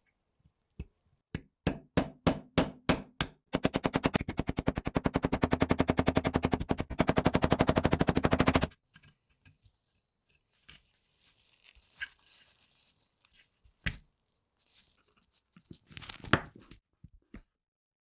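Hammer striking a pin punch against the rusty insert of a Zippo lighter on a steel anvil, driving out a pin: first separate metallic taps about three a second, then a fast unbroken string of taps for about five seconds. After that comes faint scraping with a few sharp clicks as the punch and pin are worked loose.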